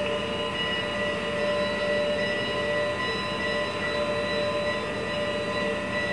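HO-scale model train running on the layout: a steady electric motor hum over a fast, even rattle of wheels on track.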